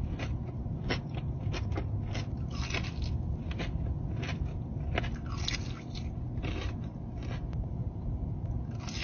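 Close-miked biting and chewing of crispy fried chicken wings, with irregular crunches several times a second.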